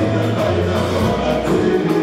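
Congolese gospel group singing together in harmony over a live band of electric guitar, bass and drum kit.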